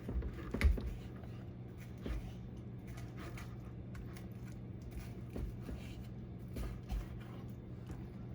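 A knife cutting a raw chicken breast away from the carcass, with a few scattered knocks and handling noises over a steady low hum.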